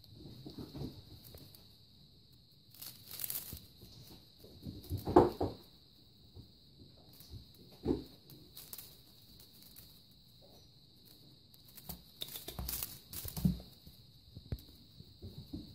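A Russian Blue kitten playing with a feathered wand toy on a chenille mat: irregular rustling and scratching of feathers and claws, with a few sharper thumps, the loudest about five seconds in, over a faint steady high-pitched hiss.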